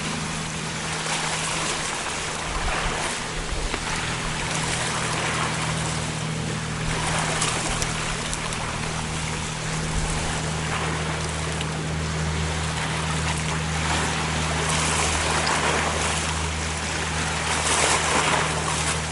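Sea waves washing against a rocky shore, swelling and ebbing every few seconds, with wind on the microphone and a steady low hum underneath.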